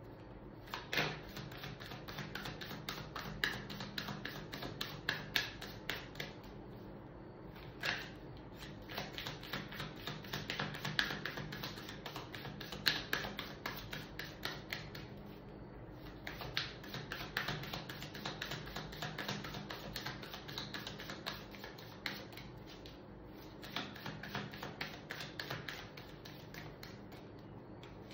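A deck of tarot cards being shuffled by hand: a long run of rapid soft clicks and flutters, in several bouts with brief pauses between them.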